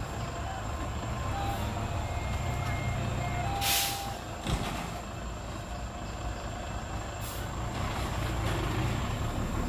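Loaded dump truck's diesel engine running low and steady as it manoeuvres, with a sharp hiss of air brakes about four seconds in and a shorter one about seven seconds in. Thin intermittent reversing-beeper tones sound over the first few seconds.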